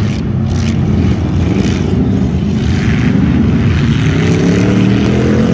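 Engines of several bump-and-run race cars (old stock sedans) running hard on a dirt track, one revving up with a rising pitch over the last couple of seconds.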